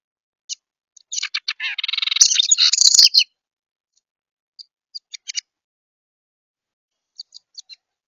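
Young wren calling: a dense burst of quick, harsh chattering calls lasting about two seconds, then two short groups of sharp chips.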